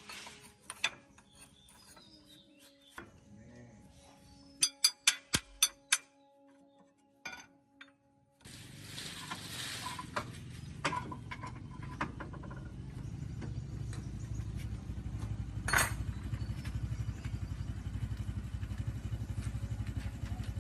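A quick run of six sharp taps about five seconds in. Then, about eight seconds in, an engine starts suddenly and keeps running with an even, rapid beat that grows slightly louder.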